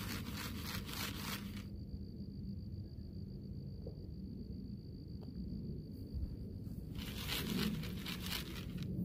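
Rapid crinkling rustles in two bouts, one at the start and another about seven seconds in, over a low steady rumble and a thin, steady high-pitched whine.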